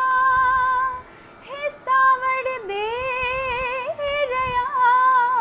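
A woman singing a Hindi Sawan (monsoon rain) song solo and unaccompanied, holding long drawn-out vowels with wavering ornamental turns. She breaks off briefly about a second in, then carries on with sustained, gliding notes.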